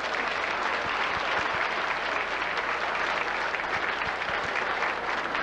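Many people clapping their hands at once: a steady, dense round of applause.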